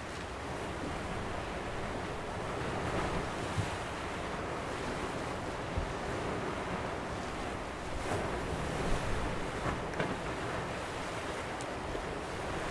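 Rough sea waves surging and washing against a concrete sea wall and steps, with wind, and a few sharper splashes in the second half.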